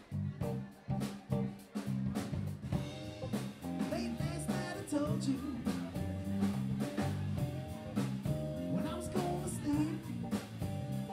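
Live band playing with electric guitar, electric bass and drum kit, a steady rock beat. The band comes back in at full volume right at the start after a brief quiet break.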